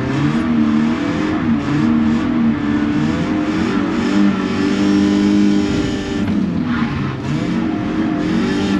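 Car engine under hard driving, its pitch rising and falling as it revs up and eases off, with a dip about six seconds in before it climbs again.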